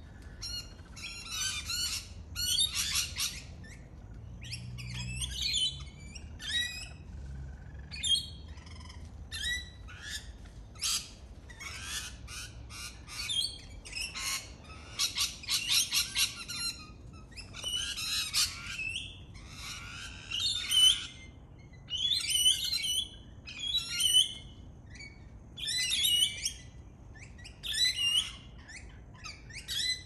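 A flock of rainbow lorikeets giving harsh, screeching calls in short bursts, one after another.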